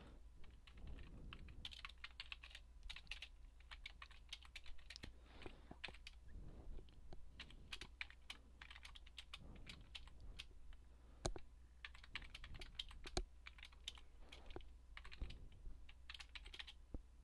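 Faint typing on a computer keyboard: irregular runs of key clicks with short pauses between them, and a few single louder key strikes.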